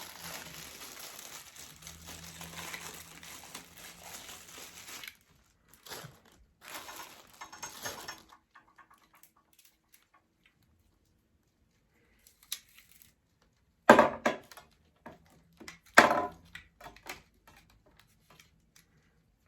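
Rustling and handling of plastic packaging and parts for about five seconds, then a few scattered rustles. Near the end come two sharp knocks about two seconds apart as plastic parts of a robot vacuum are pushed into place.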